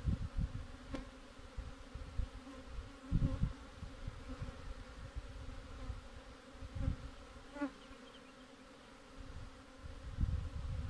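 Honeybees buzzing in a steady hum around an open wooden hive whose frames are being worked. Frequent low bumps and a couple of sharp clicks, about one second in and again after seven seconds, come through the buzzing.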